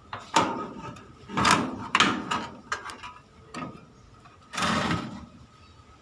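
Hand-work inside a tumble dryer: sharp clicks and knocks as the heater's wiring is unplugged and the heater handled, then a short scrape about four and a half seconds in.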